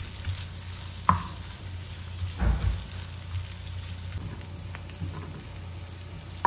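Onion and diced lamb heart and kidneys sizzling steadily as they fry in lamb fat and ghee. Two sharp knocks come about a second in and about two and a half seconds in.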